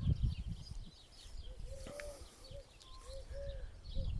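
Doves cooing: a run of short, soft coos starting about a second and a half in, with small birds chirping faintly in the background. A brief low rumble at the start.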